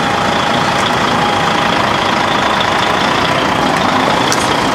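Diesel engine of a DAF CF crane truck running steadily while the truck creeps slowly past.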